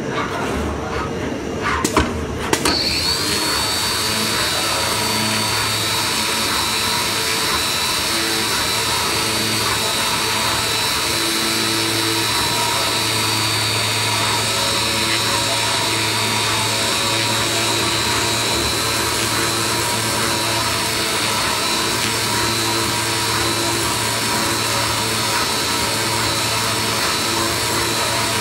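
Flatbed cutting plotter for corrugated board running. After a couple of sharp clicks, a steady high whine with a hiss starts about three seconds in and holds, over a low machine hum that comes and goes.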